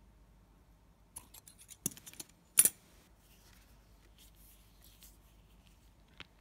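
Steel scissors trimming the tag end of a nail knot in fishing line: a few light clicks as the blades are set, then one sharp snip about two and a half seconds in. Faint rustling of the line being handled follows.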